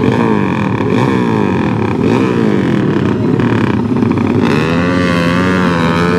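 Motorcycle engines revving, the throttle blipped again and again with the revs falling back each time. About four and a half seconds in, one engine is held at steadier, slightly wavering revs.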